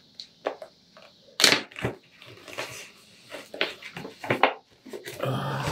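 Packaging being handled: a cigar pack and its travel bag crinkling and crackling in a series of short bursts, with a louder crackle about a second and a half in and a denser, rougher stretch near the end.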